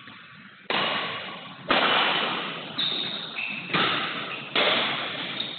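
Badminton rackets striking the shuttlecock in a rally, about one sharp hit a second, each echoing off the hard walls and roof of the hall.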